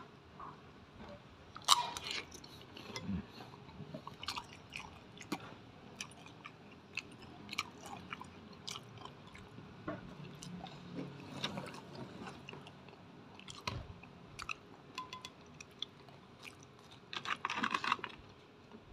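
Close-up chewing and crunching of crispy fried batagor (fried fish dumplings in wonton skins), scattered crackles, with louder bursts of crunching about two seconds in and again near the end.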